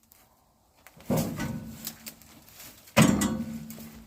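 Two loud bangs about two seconds apart, each dying away over about a second, from a microwave oven being banged on or slammed.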